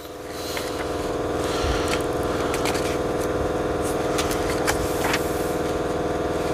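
Electric air compressor kicking on about half a second in and running at a steady hum, supplying the air that drives a diaphragm pump. A few short paper rustles and clicks from manual pages being turned.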